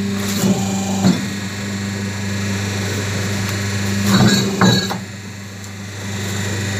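Double-die paper plate making machine running with a steady hum, with a few short knocks from the dies and sheets: two near the start and a close pair about four seconds in.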